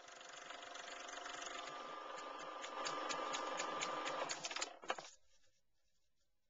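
A small machine whirring with a steady whine and rapid regular clicking, fading in over the first few seconds and stopping abruptly about five seconds in.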